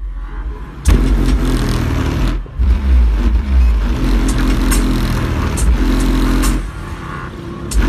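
Nuclear Xmax subwoofer in a car's trunk playing loud, deep bass music, heard from outside at the trunk lid. The bass drops out briefly about two and a half seconds in, and again for about a second near the end.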